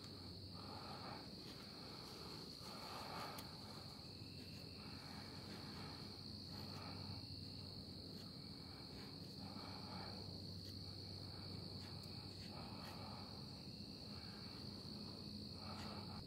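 Condor Mayflower knife blade shaving thin curls off a wooden stick, a soft scrape with each of about a dozen irregular strokes. Under it runs a steady high-pitched insect trill, likely crickets.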